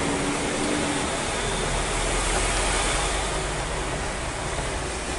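Tractor-trailer truck's engine running with a low steady rumble under a steady hiss of heavy rain and water, heard from inside the cab while driving on a flooded road.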